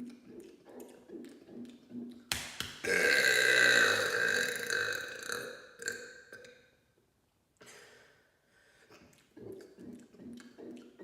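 A long, loud mega burp that starts suddenly about two seconds in, holds for about four seconds and fades out.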